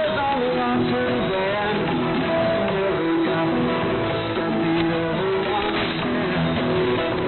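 Guitar music heard through an AM shortwave radio receiver, sounding thin with nothing above the narrow radio band, over an even hiss of static.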